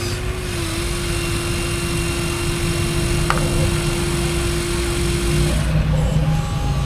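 Electric motors and gearing of radio-controlled model construction machines whirring, with a steady whine that cuts off about five and a half seconds in and a single click near the middle.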